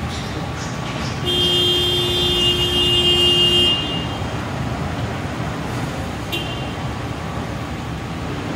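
A horn sounds one steady blast of about two and a half seconds over a steady low rumble of machinery. A short, high chirp follows a few seconds later.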